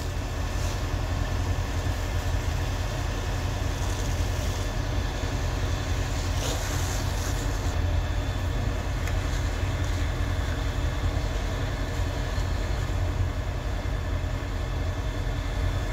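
A vehicle engine running steadily, a continuous low rumble, over an even hiss of water spraying onto the burning minivan and steam.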